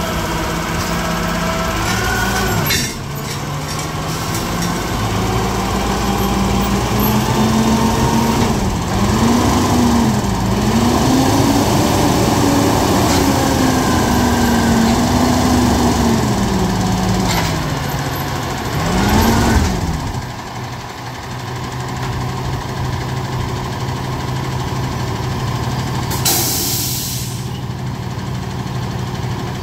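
Freightliner roll-off truck's diesel engine running at raised, varying revs to drive the hydraulic hoist as the container is lowered onto the truck bed. About two-thirds of the way in it drops back to a steady idle, and near the end there is a short hiss of released air.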